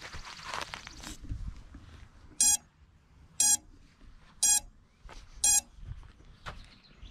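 Four short electronic beeps about a second apart from a landed FPV cinewhoop drone, after footsteps on grass in the first second.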